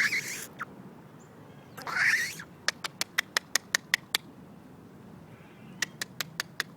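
A squirrel calling: a harsh, rasping call that rises in pitch, repeated about two seconds later, then runs of short sharp chips at about six a second.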